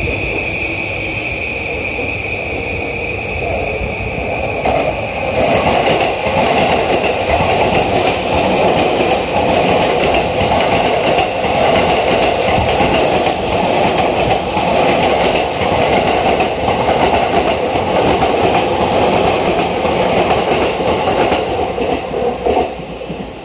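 JR East E531 series electric commuter train running through a station at speed without stopping: a steady high whine at first, then a loud, steady rumble of wheels on rail from about five seconds in as the cars pass close by, dropping away near the end as the train leaves.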